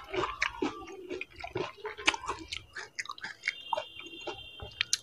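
Close-up chewing of panipuri: crisp puri shells filled with sour, spicy water, chewed with many small irregular crunches, clicks and wet squelches.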